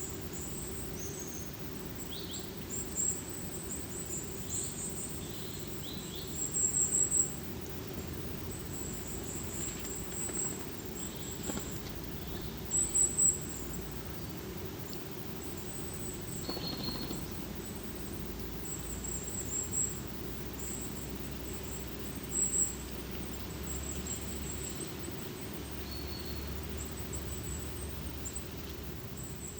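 Forest ambience: small birds, mainly tits, giving short high thin calls again and again over a steady low rush of the forest, with a louder cluster of calls about a third of the way in and again near the middle.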